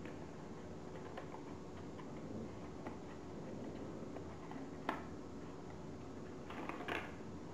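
Folded origami paper units being handled and slotted together: soft crinkles and small clicks of paper, a sharper click about five seconds in and a short burst of crinkling near the end, over a faint steady hum.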